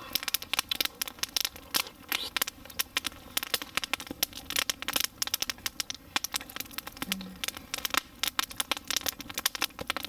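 Open wood campfire crackling, with frequent irregular pops and snaps.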